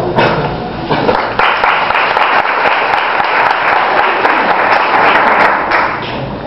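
Audience applauding a young pianist, a dense patter of clapping that starts about a second in and fades out near the end.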